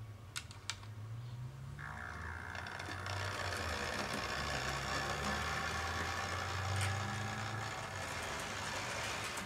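HO-scale SD40 model diesel locomotive running under power along the track, its small electric motor and gears giving a steady whirring hum that rises and falls slightly in pitch with speed. A hiss of gears and wheels on rail swells in about two seconds in and holds. Two light clicks come just after the start.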